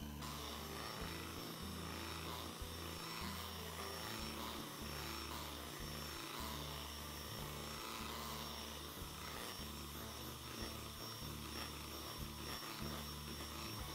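Electric hand mixer running steadily, its twin beaters whipping thick milk pudding with whipped-cream powder: an even motor whir with a thin high whine.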